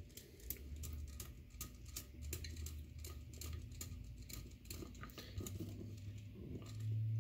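Small screwdriver turning the screw of a Phoenix-type terminal block on a Renogy Wanderer charge controller, clamping a bare battery wire: faint, irregular clicks and scrapes of the driver tip in the screw head.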